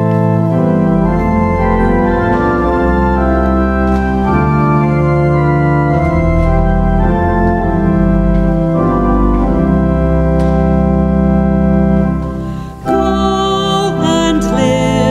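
Organ playing slow, held chords. Near the end the music breaks off briefly and a new passage begins.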